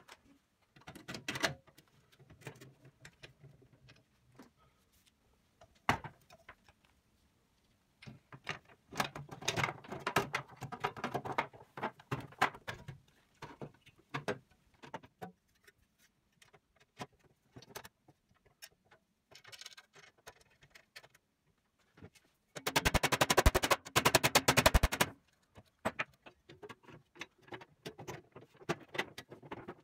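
Sheet-metal parts of a Soviet electric shashlik maker being handled and fitted together: scattered clicks, knocks and rattles of thin metal. About three quarters of the way through comes a two-second burst of very rapid clicking, the loudest sound.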